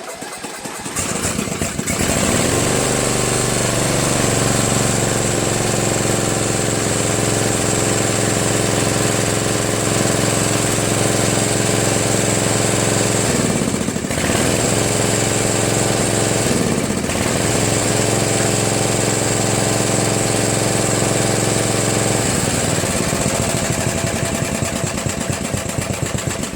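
Murray Select lawn tractor engine starting and settling into a steady run, with the seat safety switch not pressed. The engine dips in pitch briefly twice, then shuts off near the end.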